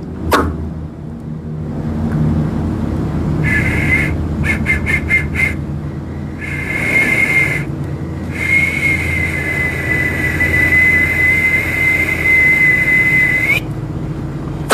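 A high whistle. It opens with a quick downward swoop, then comes a short note and a rapid run of short pulses. Another short note follows, then one long held note of about five seconds that bends up slightly just before it stops, all over a steady low hum.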